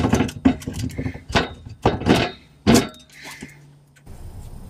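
A rebuilt limited-slip differential being worked by hand onto its studs in a Ford Escort's rear axle casing: a quick run of sharp metal clunks and knocks over the first three seconds, then a faint steady hum.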